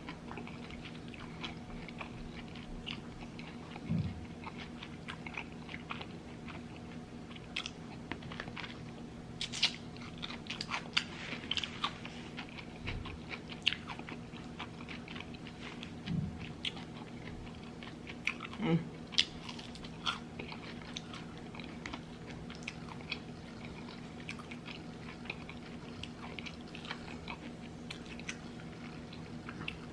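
A person chewing and biting a bacon cheeseburger and fries close to the microphone: irregular wet mouth clicks and crunches over a faint steady hum.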